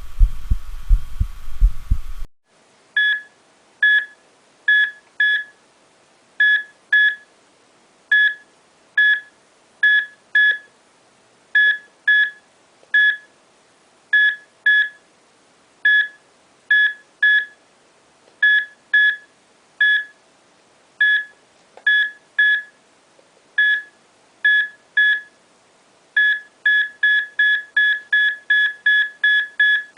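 Recorded heart sounds, a run of low thumps, cut off about two seconds in. A series of short, high electronic beeps follows, unevenly spaced and often in pairs, settling into a fast, even beat of about three a second near the end.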